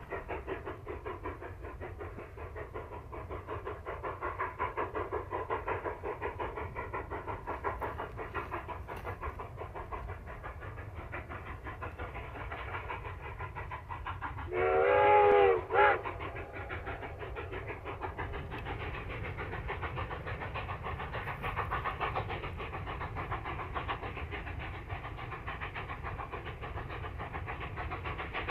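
Rio Grande K-36 narrow-gauge 2-8-2 steam locomotive No. 487 hauling a freight train, its exhaust chuffing in a steady beat. About halfway through, its steam whistle gives one long chord blast followed by a short toot.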